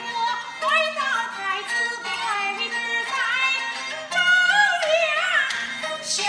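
Peking opera music: a high singing voice sliding and wavering between held notes, over a lower instrumental accompaniment.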